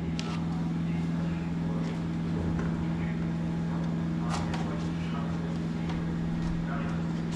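A steady low mechanical hum, one unchanging tone, with faint voices in the background.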